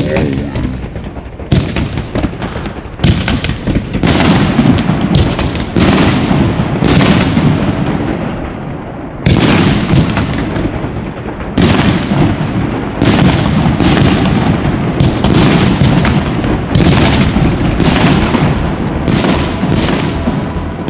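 Pyroland Hairforce One, a category F2 gold/brocade firework compound, firing shot after shot, about one a second, with sharp bangs each followed by a long fading rush of noise from the bursting gold willow shells.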